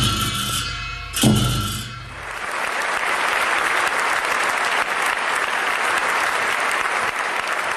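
Tibetan ritual dance music: a deep drum and cymbals struck together, with a last ringing stroke about a second in. The music then stops and a large audience applauds.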